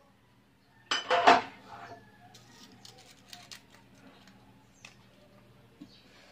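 Cookware clattering briefly and loudly about a second in, followed by scattered light clicks and taps. A faint steady hum runs underneath.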